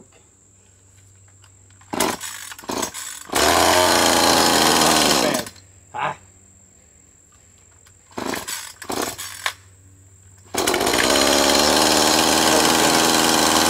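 Echo CS-2511T top-handle chainsaw's small two-stroke engine being pull-started with the choke just turned off after its first fire: a few short pulls of the starter cord, then the engine catches and runs for about two seconds before dying. A few more pulls follow, and near the end it starts and keeps running steadily.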